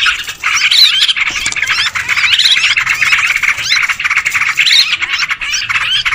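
A noisy chorus of many yellow-vented bulbuls calling over one another: a dense, unbroken stream of quick overlapping chirps and squawks. It is a bird-catchers' lure call for attracting wild bulbuls.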